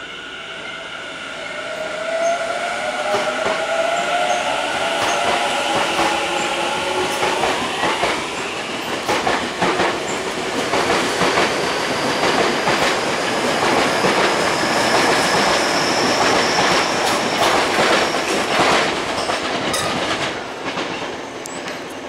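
Tobu 50090-series electric commuter train pulling away from a station. Its traction motors whine, rising in pitch as it accelerates, then the wheels clatter over rail joints in a quickening run of clicks as the cars pass. The sound eases off near the end.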